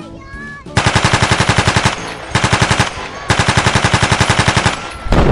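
Machine-gun fire sound effect in three rapid bursts of about ten shots a second, the last one longest, followed right at the end by the start of a deep boom.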